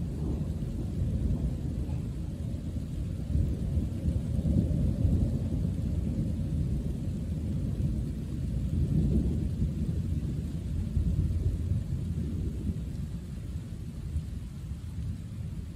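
Rolling thunder: a long, low rumble that swells about four to five seconds in and again about nine seconds in, then slowly dies away.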